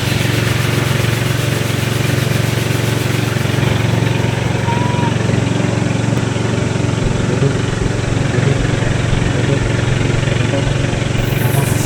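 An engine running steadily: a low, even drone under a wash of noise.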